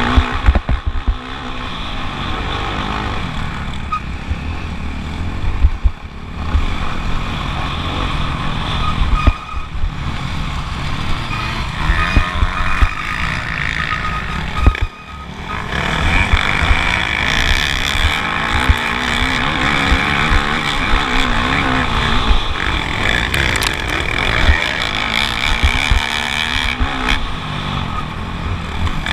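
Motocross bike engine at racing speed, revving up and easing off over and over, with frequent low thumps and one brief drop in level about halfway through.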